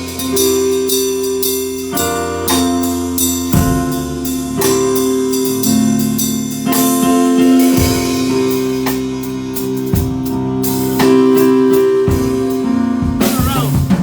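Keyboard and drum kit playing a song live together: held keyboard chords over steady drum hits.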